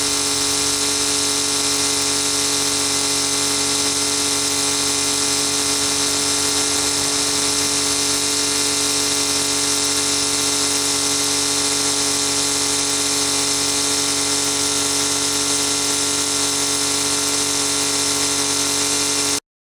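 Water jetting under hose pressure from the outlets of a SuperFlush SF 200 C marine engine flushing unit: a steady hiss with a steady whine, cutting off suddenly near the end.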